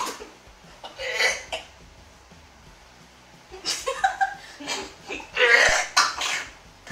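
A man with his mouth stuffed full of whole baby carrots gagging and coughing in several short fits, mixed with laughter, as he bends forward to give up and spit them out.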